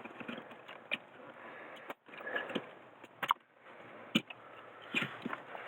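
Plastic clicks and handling rustle from the tan release levers of a wiring connector on a 2009 Ford Ranger's smart junction box being worked to unplug it, with several separate sharp clicks.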